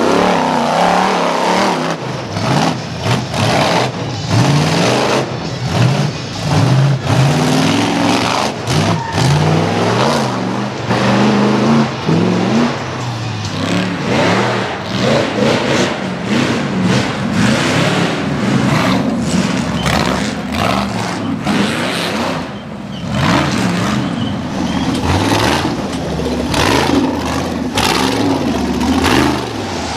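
Rock bouncer buggy engine revving hard in repeated bursts, its pitch rising and falling over and over as it claws up a steep dirt and rock hill.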